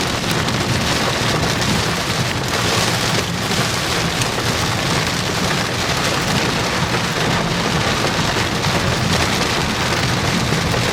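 Heavy rain pelting a moving vehicle's roof and windshield as a dense, even patter, over the steady low drone of the vehicle on the road.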